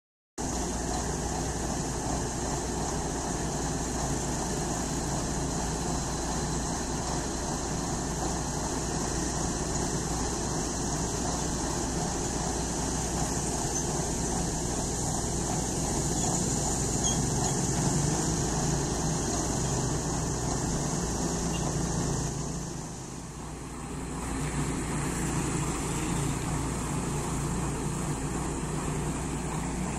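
Heavy diesel engine running steadily, a constant low rumble, with a brief drop in level about three quarters of the way through.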